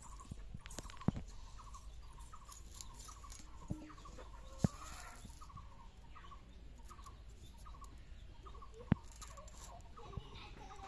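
A chicken clucking over and over in short calls, about two to three a second. A few sharp clicks stand out among them.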